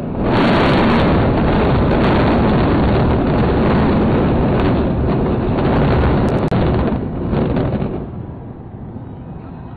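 Explosive demolition of the Supertech twin concrete high-rise towers: a sudden, very loud crackling blast runs straight on into the rumble of the collapse. It eases off after about eight seconds.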